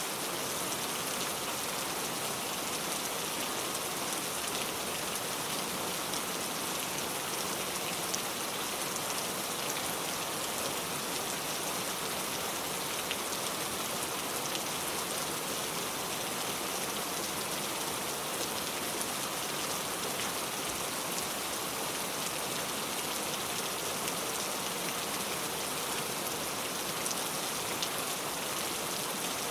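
Steady rain falling: an even, unbroken hiss with many faint drop ticks.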